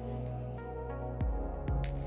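Electronic background music: sustained synth chords, with two kick drum beats in the second half.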